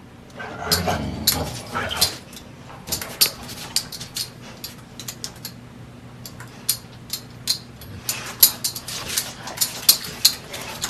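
Two dogs playing tug-of-war over a cloth, growling at each other, louder about a second in, with many short sharp clicks and scuffs throughout.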